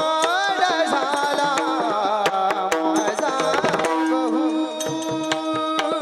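Devotional kirtan music: a singer's wavering melodic line over steady held notes, with quick hand-drum strokes that grow busier in the middle and near the end.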